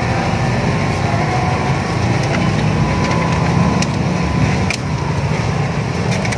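A steady low engine-like drone under the shuffling noise of a walking crowd, with a few sharp clicks.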